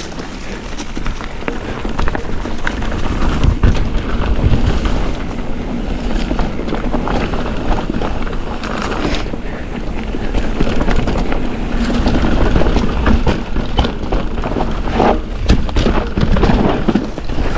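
2023 Ibis Ripmo V2S mountain bike descending a dirt downhill trail: steady wind rush on the camera microphone over tyre noise, with frequent knocks and rattles as the bike runs over bumps and small jumps.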